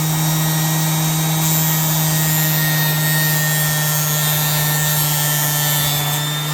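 Orbital sander with a 220-grit Diablo sanding disc running at a steady speed, its disc grinding against the tip of a steel scraper blade to sharpen it, with a steady hum under a hiss of abrasion.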